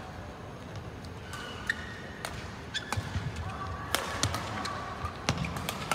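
Badminton rally: a quick series of sharp racket strikes on the shuttlecock, about two a second from around a second and a half in. Short squeaks of court shoes on the floor run between the hits.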